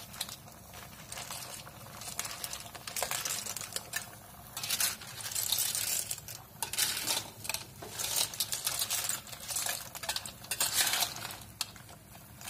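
Clams being stirred with a metal spatula in a metal wok: the shells clatter against each other and the pan in irregular bursts.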